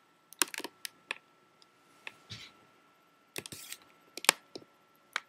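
Handling noise: irregular clicks and knocks with a couple of short rustles, as the handheld camera is moved and tilted down towards the bed, over a faint steady tone.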